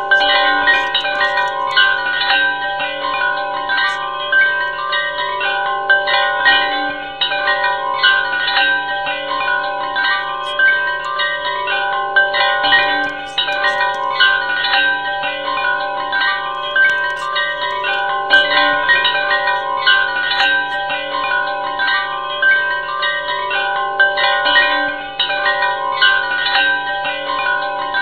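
Background music of chime-like ringing notes, held and overlapping, changing note about every second.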